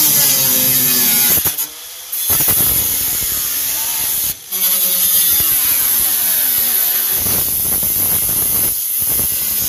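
Angle grinder cutting through the van's sheet-metal body panel: a loud, high, hissing screech, the motor's pitch sagging and coming back up as the disc bites. It breaks off briefly twice, near two seconds and about four and a half seconds in.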